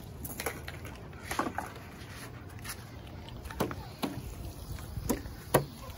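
Handling noise from a handheld phone being carried quickly: a low rumble with a handful of short, irregular knocks and taps.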